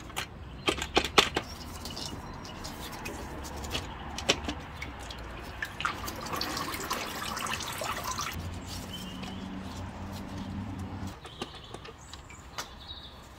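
Engine coolant dripping and trickling as the thermostat housing pipes are worked loose, with sharp clicks and knocks of plastic parts being handled and a rush of liquid past the middle. A low steady hum runs for a couple of seconds after the rush.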